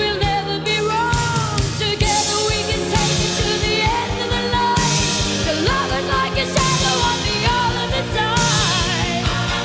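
A song playing: a voice singing over a band with a steady drum beat.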